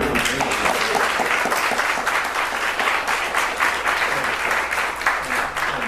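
Audience applauding: many hands clapping in a dense, steady patter, easing slightly near the end as the applause dies down.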